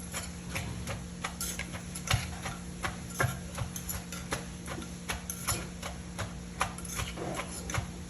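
Pestle pounding in a som tam mortar (krok): a run of irregular sharp knocks, about two or three a second, some louder than others.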